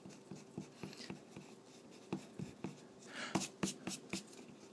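Eraser rubbing on drawing paper to erase pencil lines: a few faint strokes, then a quicker run of about five strokes some three seconds in.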